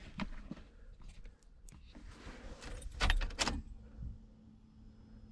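Ignition keys jangling and clicking in a Mazda Miata as the key is worked in the switch, loudest about three seconds in. Then a faint steady hum starts as the electrics switch on.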